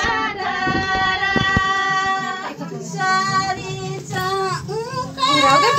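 Girls' voices singing a folk song in unison, holding one long note for the first two and a half seconds, then moving into shorter phrases. A few sharp knocks come in the first couple of seconds.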